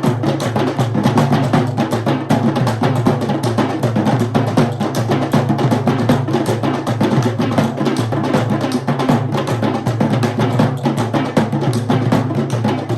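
Sri Lankan traditional drum ensemble playing a fast, dense rhythm of continuous rapid hand and stick strokes.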